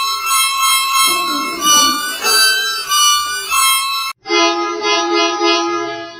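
Electronically altered bus horn sound: a high, pulsing multi-tone honk with a couple of pitch steps, which cuts off abruptly about four seconds in. A lower, duller variation of the horn follows.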